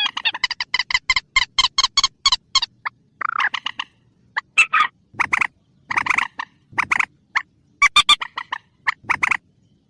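Recorded lure call of a rail ('burung mandar'): a fast run of harsh, repeated notes, about five a second, for the first two and a half seconds, then short bursts of notes spaced about a second apart.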